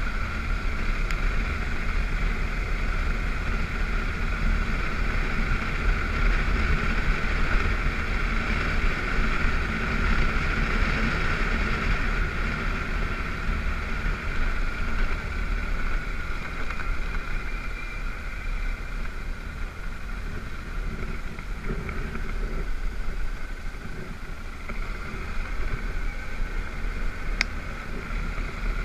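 BMW F650GS motorcycle engine running at a steady cruise on a gravel road, with a constant low wind and road rumble under the engine drone.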